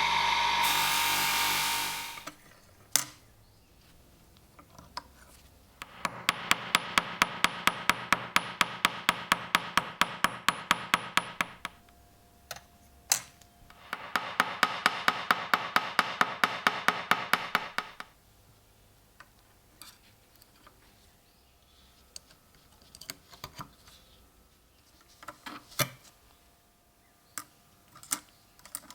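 A running power tool winds down and stops about two seconds in. Then come two spells of fast, even rasping, about five strokes a second, each lasting several seconds, followed by scattered light clicks and taps of tools and metal parts being handled.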